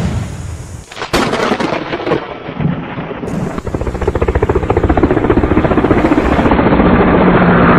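Edited-in sound effect: a loud crash, then a dense rumbling, crackling noise like thunder that grows steadily louder and cuts off abruptly near the end.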